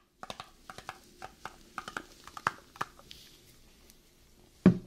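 Gloved hands tapping and handling a cardboard ice cream pint: a run of quick, light taps and clicks, then one heavy thump near the end as the pint is set down on a cutting mat.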